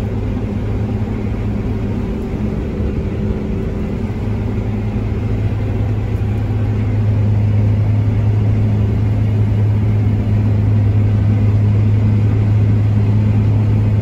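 New Holland CR9070 combine harvester running while harvesting, heard from inside the cab as a steady low drone of engine and threshing machinery. The engine is at about 2,100 rpm under half load. The drone grows a little louder about halfway through.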